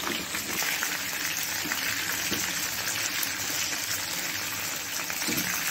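Marinated soya chunks deep-frying in hot oil in a pan, giving a steady sizzle.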